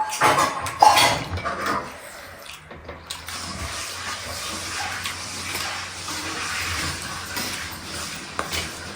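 Close-up eating sounds of ramen noodle soup: slurping and wet mouth noises, with a few sharp clinks of bowl or utensils in the first two seconds.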